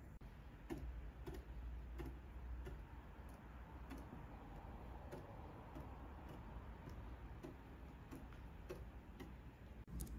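Soft, evenly spaced ticking, about three ticks every two seconds, over a low steady hum.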